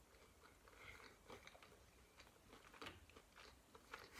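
Faint chewing of a crispy sushi roll with a crunchy crust: scattered soft crunches and clicks from the mouth.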